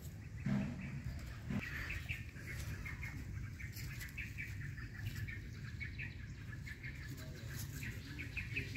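Small birds chirping, quick short chirps repeated throughout over a low steady rumble. Two brief low sounds come about half a second and a second and a half in.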